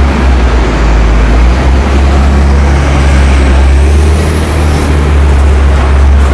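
Street traffic with a diesel semi-trailer truck running close by: a loud, steady low engine rumble.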